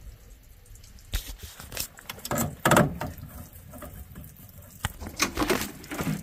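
A string of irregular clicks and knocks, a few of them sharp and loud, spaced unevenly over the few seconds.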